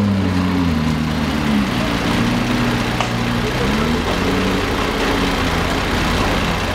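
McLaren P1's twin-turbo V8 running at low speed as the car pulls away, its engine note dipping and then rising again a couple of times.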